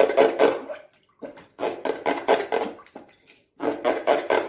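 Water being splashed and sloshed, in three bursts about a second apart.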